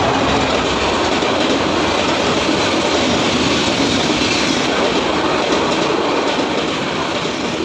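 Dolanchampa Express passenger coaches passing close by at speed: a steady, loud rush of wheel and rail noise.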